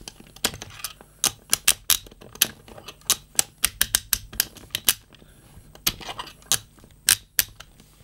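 Horst Stein T52LW side-swing handcuff being ratcheted: the bow swung through the lock and a strong spring snaps the single locking pin into the bow's holes, giving a series of sharp metallic clicks in irregular runs. With only nine locking positions, the action is coarse.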